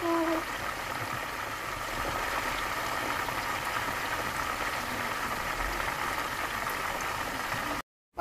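Whole chicken deep-frying in a pot of hot oil: a steady sizzling that cuts off suddenly near the end.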